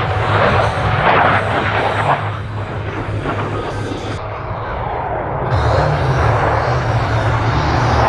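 Military jet aircraft flying past, a continuous jet-engine rush with deep rumble. It eases off in the middle and swells again near the end.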